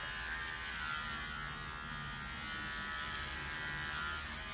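Cordless electric hair clippers running with a steady buzz, cutting the last of the hair at the back of the head.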